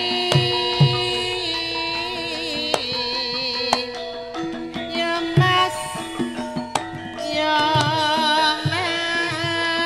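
Javanese gamelan music: held metallophone tones and dull kendang drum strokes under a female sinden singing with a wavering vibrato.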